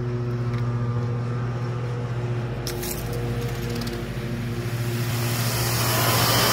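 Greenworks 2300 psi electric pressure washer's motor running with a steady hum, a few clicks near the middle. About five seconds in, the hiss of the water jet from the turbo nozzle builds up and grows louder.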